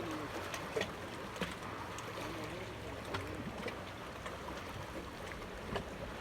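Steady outdoor water and wind noise, with a faint distant voice in the first half and a few scattered small clicks.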